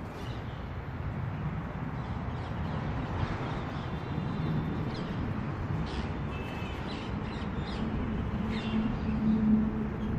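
Outdoor background of a steady low traffic rumble with scattered short bird calls; a steady engine hum comes in about eight seconds in and grows louder near the end.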